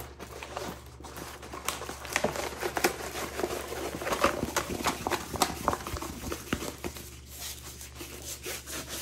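Rustling and crinkling of a rolled diamond-painting canvas and its paper wrapping as it is flattened and rolled up by hand, in an irregular run of small crackles and rubs.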